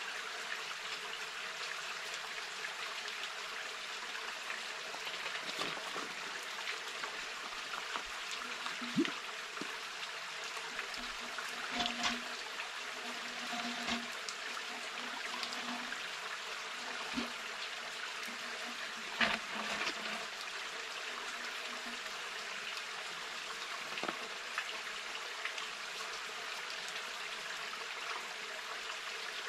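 Small forest stream running steadily, with a handful of short, sharp sounds scattered through the flow.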